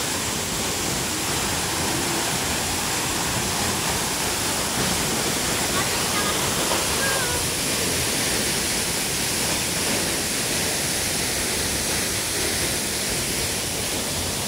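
Tall waterfall crashing into its rocky plunge pool: a steady, loud, even rush of falling water.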